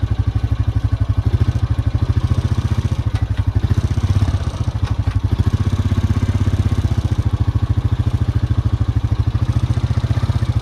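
A vehicle's engine running at a low, even speed with a steady throbbing pulse.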